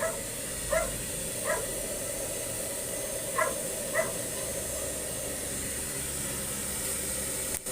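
A dog gives short, high barks, five in all, the last about four seconds in, over a steady hiss.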